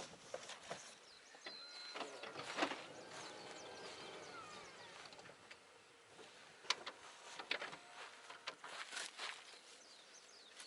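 Songbird calling outdoors with a run of gliding, whistled notes, over quiet background ambience. Scattered light knocks and crunches come and go, the sharpest about two and a half seconds in and again near seven seconds.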